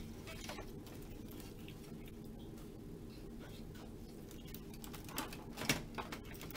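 Hard plastic clicks and knocks as the rear plastic cover of a Kyocera printer is forced loose and pulled out by hand. They come mostly near the end, the loudest a little over five seconds in, over a steady low hum.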